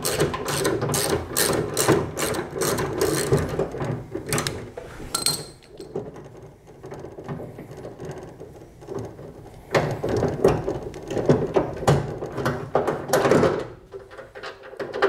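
Ratchet wrench clicking in quick strokes, about three a second, as it backs out the bolt holding the window track in a pickup door. The clicking comes in two spells, the second beginning about ten seconds in.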